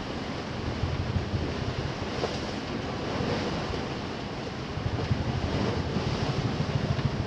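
Waves rushing and breaking along the hull of a sailboat driving through rough seas, with wind buffeting the microphone as an uneven low rumble.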